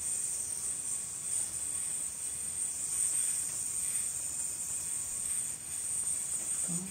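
A yoyo spinning on its string while tricks are worked, giving a steady high whirring hiss.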